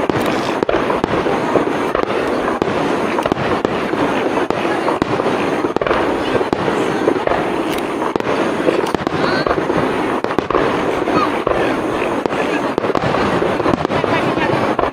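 Aerial fireworks bursting in a dense, continuous barrage of rapid crackling reports, with no single standout boom.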